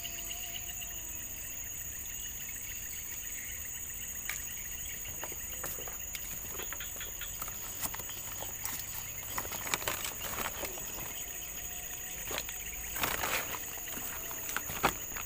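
Steady high-pitched chirring of an insect chorus. From about four seconds in come scattered rustles and clicks as a fishing rod and line are handled close by; these are loudest near the end.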